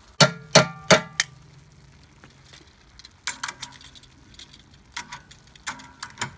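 Metal kitchen tongs clinking against the pan of food: four sharp, ringing clinks in the first second or so. Lighter clusters of clicks follow around three seconds in and again near the end.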